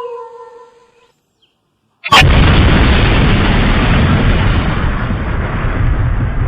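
A falling pitched tone fades out, then after about a second of silence a sudden loud blast about two seconds in, followed by a long, loud, deep rumble that slowly dies away, like an explosion sound effect.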